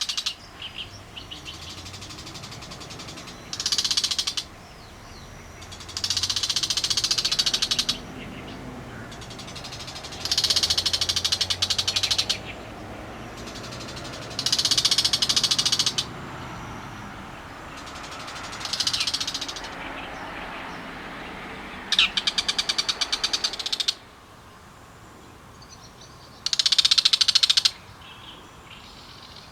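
Bull-headed shrike calling: loud, harsh, rapid chattering 'gichi-gichi' bursts of a second or two each, repeated about every three to four seconds. A faint low hum runs underneath.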